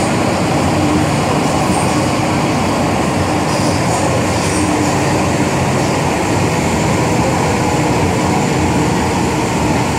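MTR M-Train electric multiple unit running along the line, heard inside the car: a steady, loud rumble of wheels on the rails and the traction equipment.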